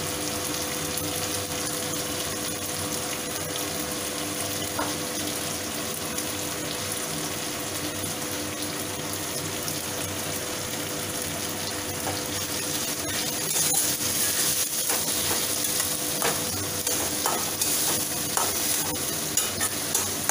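Chopped tomatoes, capsicum and grated ginger sizzling steadily in hot oil in a metal kadai. About two-thirds of the way in, a metal spatula starts stirring, and the sizzle gets louder with repeated scrapes and clicks of the spatula against the pan.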